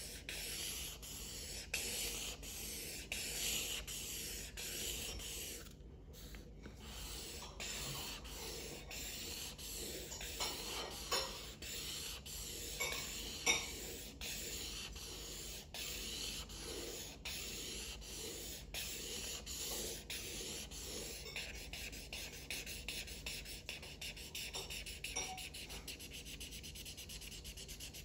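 Black felt-tip marker scribbling back and forth on paper, a continuous run of rubbing strokes as a large area is shaded in.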